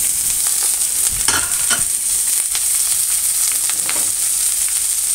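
Sliced red peppers sizzling in hot olive oil in a frying pan on high heat: a steady hiss, with a couple of brief clicks about a second and a half in.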